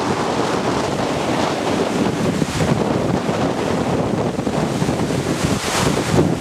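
Strong wind buffeting the microphone over the rush of wind-driven waves in rough water. The noise is steady, with a sharper hiss twice, about two and a half seconds in and near the end.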